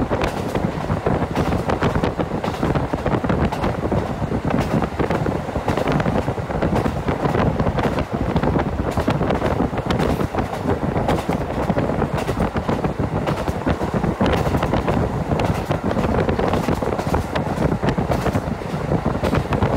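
Diesel local train running at speed, heard from inside the carriage: a steady rumble of wheels and engine. Irregular wind buffeting on the microphone sits on top of it.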